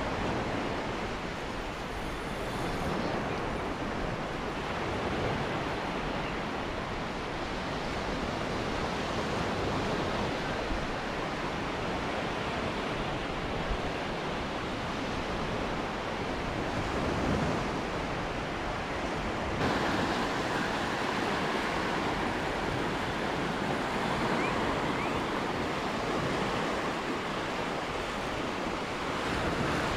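Gulf of Mexico surf washing and breaking onto a sandy beach in a steady rush. About twenty seconds in the sound shifts, a little brighter and louder.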